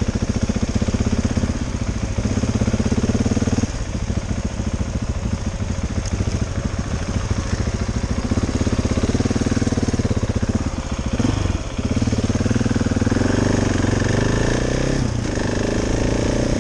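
KTM 690 Enduro R's single-cylinder engine running under way, its pulsing note stepping up and down as the throttle is opened and eased off, with brief dips about four, eleven and fifteen seconds in.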